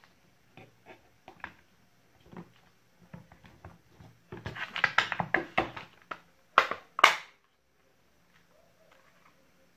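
Clicks and knocks of a cordless drill's plastic housing being handled and pressed together, with a busy run of small knocks in the middle and two louder knocks about seven seconds in.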